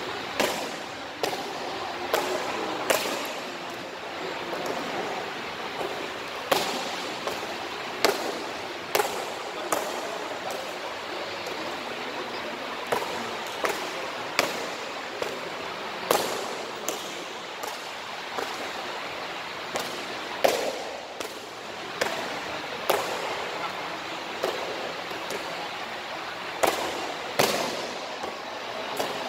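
Foot repeatedly slapping a taekwondo kick paddle in a speed-kicking drill: a series of sharp smacks, roughly one a second and sometimes closer together, at an uneven pace.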